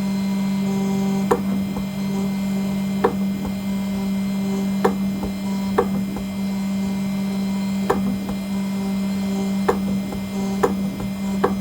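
CNC engraving machine running while it cuts aluminium: a steady, loud spindle hum with sharp clicks every second or two, spaced unevenly.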